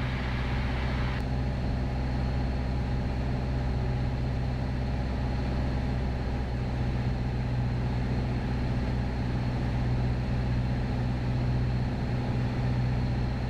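Steady drone of a Piper PA-28 Cherokee Warrior's four-cylinder Lycoming engine and fixed-pitch propeller, heard inside the cockpit during the final approach to land. A higher hiss drops away about a second in, while the engine note stays even.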